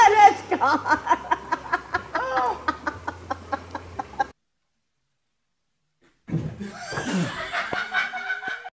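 A man laughing hard in rapid, choppy bursts, which cuts off abruptly about four seconds in; after about two seconds of dead silence a different noisy stretch begins.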